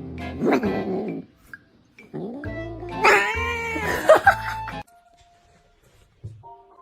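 A cat yowling in two long, wavering calls: one fades out about a second in, and the next runs from about two seconds to nearly five. Background music plays under them, then continues alone.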